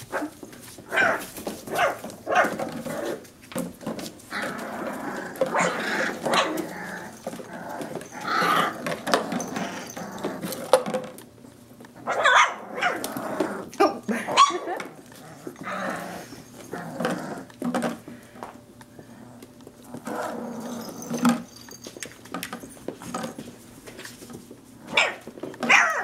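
Very young Soft Coated Wheaten Terrier puppies barking and growling in play, short irregular calls from several pups at once, with brief lulls.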